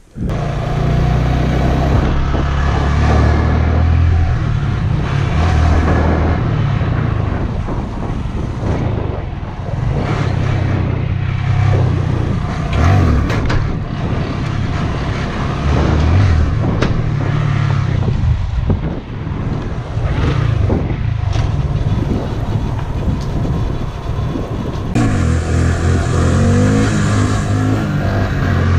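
Honda Grom's single-cylinder four-stroke engine running while riding, its note rising and falling as the throttle and gears change.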